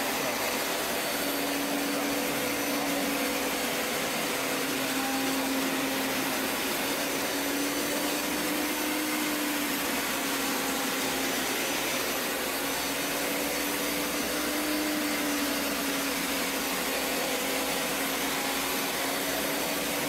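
Hoover Power Scrub Elite carpet cleaner with its hard-floor attachment running steadily while scrubbing a concrete floor. Its motor gives a constant rushing noise with a whine that drifts slightly up and down in pitch.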